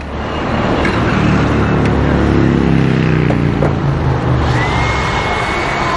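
A motor vehicle engine running close by, its pitch sinking slowly over a couple of seconds. A thin high whine joins about four and a half seconds in.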